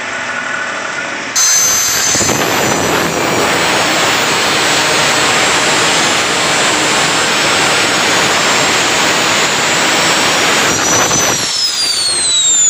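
Hand-held angle grinder grinding down weld built up on a steel ball-joint ball: a loud, steady grinding noise over the motor's high whine. Near the end the grinding stops and the whine falls as the disc spins down.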